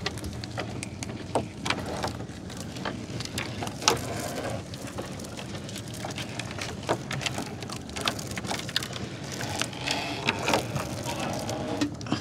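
Wet nylon gill net being hauled hand over hand into a wooden boat, water dripping and pattering off the mesh onto the deck and the river, with many small clicks and knocks of the net and its floats against the boat's planks.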